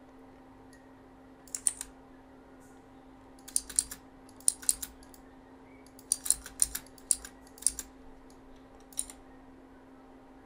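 Computer keyboard typing in short bursts of a few keystrokes with pauses between, the longest run a little past the middle.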